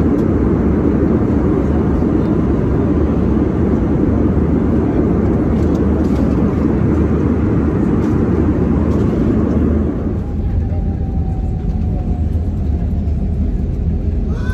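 Jet airliner cabin noise: a steady rush of engine and air noise heard from inside the cabin. It drops to a quieter, thinner level about ten seconds in.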